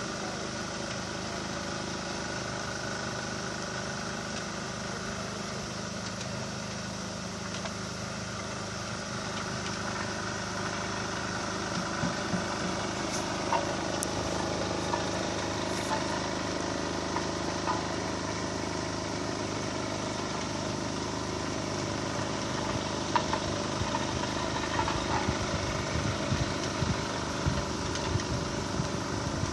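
An engine running steadily at idle. From about twelve seconds in there are short knocks and clatters, which come more often near the end.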